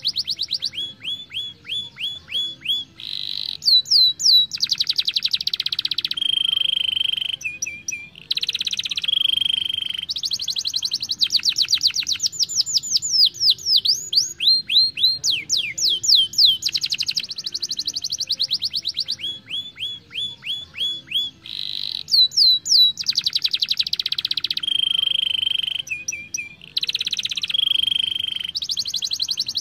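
Young domestic canary singing a long, continuous rolling song: fast trills of repeated notes, buzzy rattling phrases and quick falling whistles, one phrase running straight into the next.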